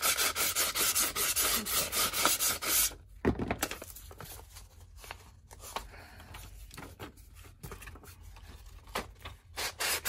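Sanding block scraped in quick repeated strokes along the paper-covered edge of a card, trimming the overhanging paper flush. The strokes stop about three seconds in, leaving quieter scattered scrapes and paper rustling, then pick up again near the end.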